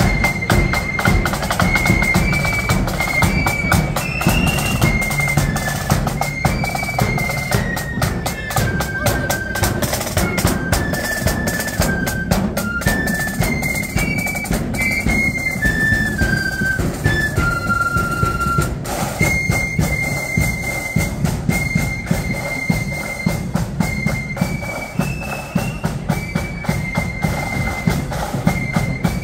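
Marching flute band playing a tune: a single high flute melody moving note by note over constant snare drumming and bass drum beats.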